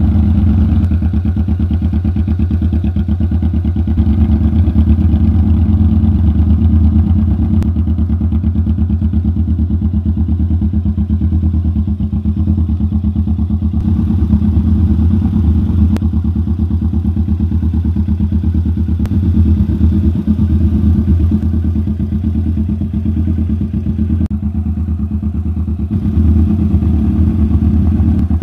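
Kawasaki Vulcan S 650's parallel-twin engine idling steadily through a catalytic-converter-delete Orion aftermarket exhaust, a loud, even low exhaust note.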